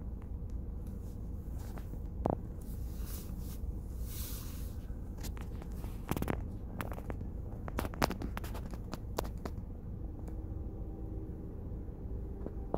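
Freight train rolling past a grade crossing, heard from inside a stopped car: a steady low rumble with scattered sharp knocks and clicks.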